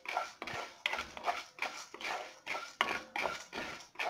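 A spoon scraping around a kadai in quick repeated strokes, about two or three a second, stirring chana dal and urad dal as they roast in a little oil over low heat.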